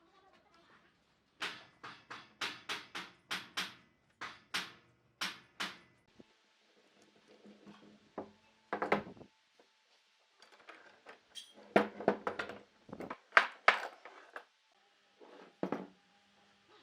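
Repeated sharp knocks on wood, about two or three a second, in several short runs with pauses between.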